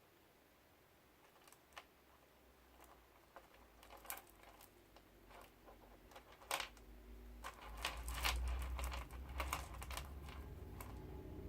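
Beads on an elastic bracelet clicking and tapping against each other as they are handled and threaded onto cord: scattered small clicks that come thicker in the middle, with a low rumble from about two-thirds of the way through.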